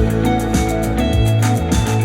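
Instrumental music with a steady drum beat and bass, played back through Adam Audio A5X powered studio monitors.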